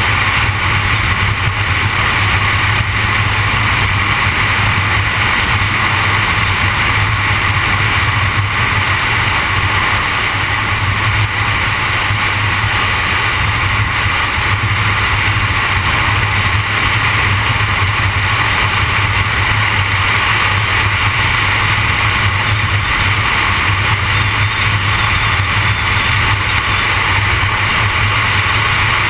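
Car travelling at a steady highway speed: a constant road noise that holds level throughout, with no change in engine pitch.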